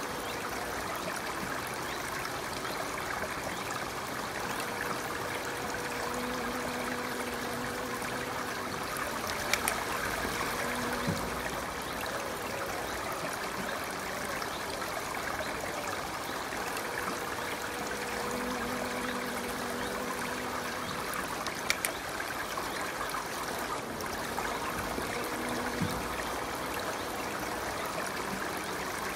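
Steady trickling of a running stream, with a faint hum that comes and goes a few times. A few short sharp clicks stand out, the loudest about ten and twenty-two seconds in.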